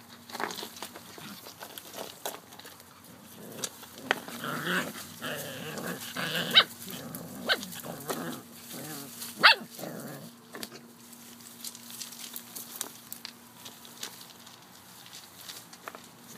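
Australian Shepherd puppies growling at play for several seconds, with two sharp yips about halfway through. Scattered rustling and scratching in leaves and gravel.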